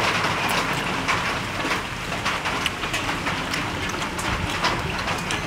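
Small clicks and taps of snail shells and a metal spoon as cooked snails are picked from their shells and dipped into a stone mortar of sauce, over a steady hiss of background noise.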